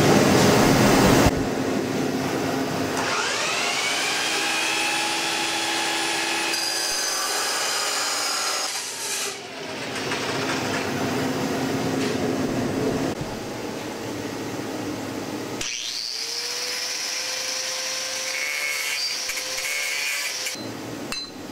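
Power tools cutting square steel tubing. An abrasive chop saw's motor spins up with a rising whine and runs through the cut. Later an angle grinder with a cut-off wheel spins up higher and runs through the tube, then stops shortly before the end.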